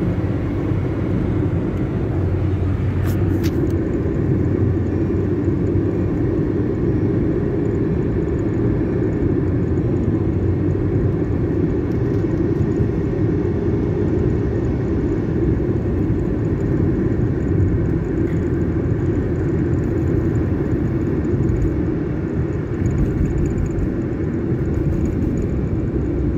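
Steady road and engine noise inside a car's cabin while driving along a highway at speed, a constant low drone. A brief click sounds about three seconds in.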